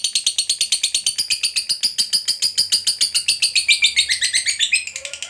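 Fischer's lovebird giving a long 'ngekek': an unbroken, rapid, high chattering trill of about a dozen sharp notes a second, dropping a little in pitch near the end. This long, continuous trill is the call that lovebird keepers prize and play to draw other birds into singing.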